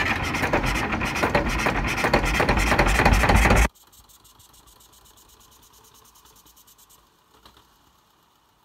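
The petrol starting (pony) engine of a 1964 DT-28 tractor running fast and hard on a cold start, then cutting off suddenly about three and a half seconds in, leaving only faint low noise.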